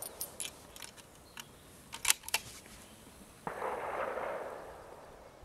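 A run of small mechanical clicks from a compact camera's zoom and handling. Then, about three and a half seconds in, a single shot from a Sauer 200 STR bolt-action rifle, its report followed by a fading echo lasting over a second.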